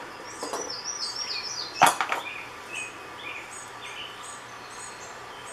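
A refrigerator compressor is set down on a rubber tray with a heavy knock a little under two seconds in, followed by a couple of lighter knocks. Small birds chirp repeatedly in the background.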